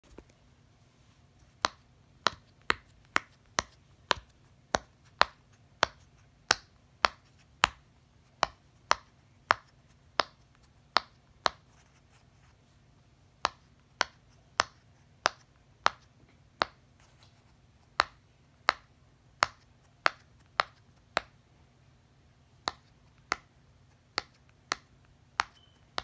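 Silicone pop-it fidget toy being pressed bubble by bubble with a finger, each bubble giving a sharp pop, about one or two a second, with two brief pauses.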